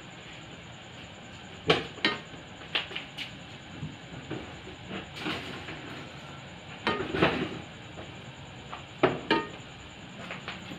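Scattered clinks and knocks of metal pots and kitchen utensils, about a dozen at irregular intervals, over a steady low hiss. The sharpest come about two seconds in, around seven seconds in and about nine seconds in.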